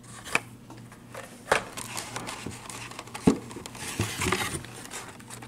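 Carded Hot Wheels toy cars being handled in a cardboard shipping case: the card-and-plastic blister packs rustle and scrape against the box, with a few sharp taps and clicks as the cards knock together.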